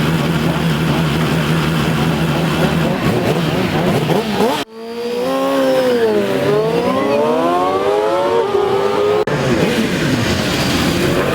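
Sport motorcycle engines revving hard at a drag strip. A high-revving engine runs steadily, then after a sudden cut one engine's pitch dips and then climbs steadily for about three seconds as it revs up, before another cut to more engine noise.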